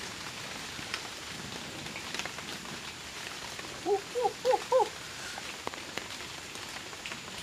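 Wood campfire crackling with scattered sharp pops over a steady hiss. About four seconds in, an animal gives a quick run of five short, pitched calls, the loudest sounds here.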